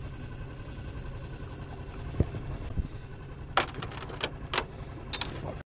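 Steady wind and water noise, then, about three and a half seconds in, a run of sharp clicks, about four a second, from the spinning reel as a fish is hooked and pulls against the rod.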